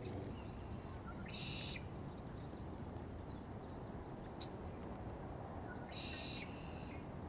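A bird calling twice, two short high calls about four and a half seconds apart, over a quiet steady outdoor background.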